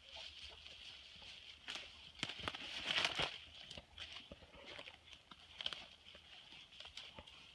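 Footsteps crunching through dry leaf litter and twigs, with brush rubbing past, in a run of irregular crackles that is busiest about three seconds in.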